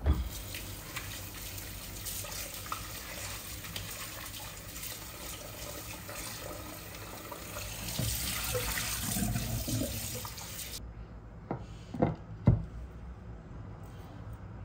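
Kitchen tap running into a stainless steel sink while a plastic mixing bowl is rinsed and turned under the stream. The water shuts off suddenly about three-quarters of the way through, followed by two sharp knocks as things are set down on the counter.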